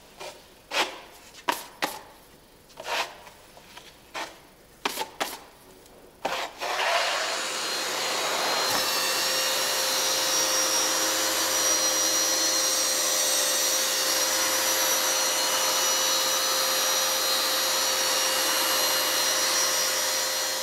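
A wide steel broad knife scraping ready-mixed filler across a wall in a run of short strokes. About seven seconds in, a round-headed wall sanding machine with a dust-extraction hose starts and runs with a steady whirring hiss, sanding the filled surface.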